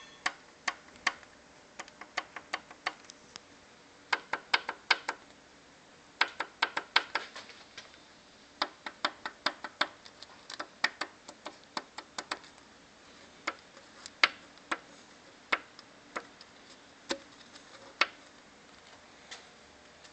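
Sharp clicks in irregular runs of a few at a time, a few tenths of a second apart, with short pauses between runs.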